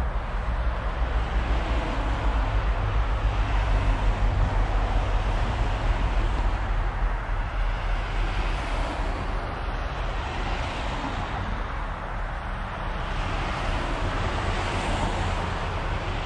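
Wind blowing across the microphone outdoors: a steady low rumble with a hiss over it, and no distinct events.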